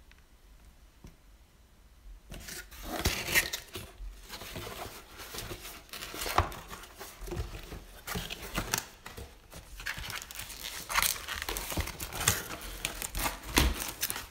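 Cardboard shipping box being handled and its flaps folded open: irregular rustling, scraping and small knocks of cardboard, starting about two seconds in.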